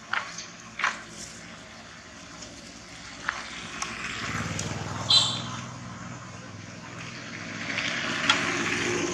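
A motor vehicle's engine hum swells and fades around the middle, over outdoor background noise that rises again near the end, with a few sharp clicks in the first second and a short, sharp high sound just after the hum peaks.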